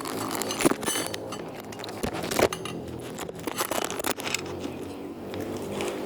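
Tofu slime being squished and worked by hand, giving irregular sticky clicks and crackles.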